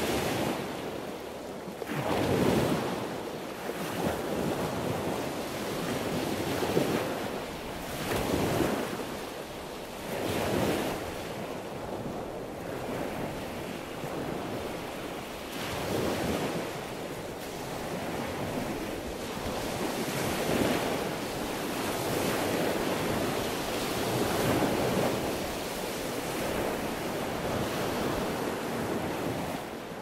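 Sea waves washing and breaking: a continuous rush of surf that swells and eases every few seconds.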